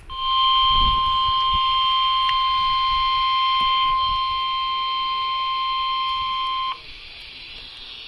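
Weather radio sounding the steady NOAA Weather Radio 1050 Hz warning alarm tone, one unbroken beep that cuts off abruptly after about six and a half seconds. It signals that a warning broadcast is about to follow.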